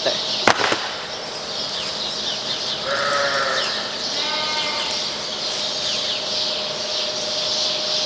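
Lambs bleating, two short bleats about three and four and a half seconds in. There is a sharp click about half a second in.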